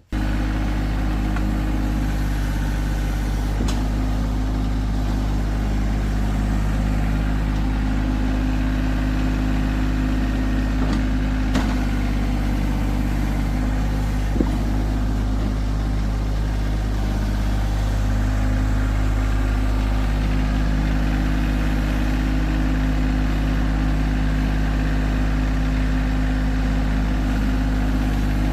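Tractor engine running steadily at a constant speed, with a few sharp clicks or knocks.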